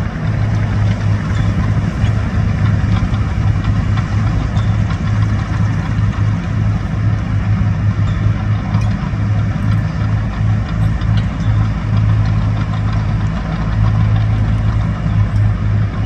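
Heavy diesel engine idling steadily at a constant low pitch, with no revving.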